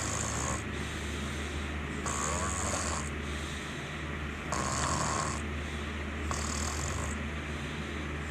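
Snoring in a steady rhythm, one snore about every two seconds, over a constant low hum.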